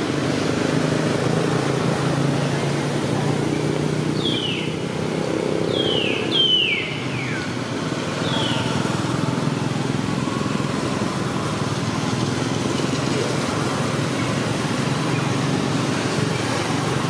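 A motor running steadily, with a low hum over a constant noisy background. Around the middle, four short high-pitched calls each slide quickly downward.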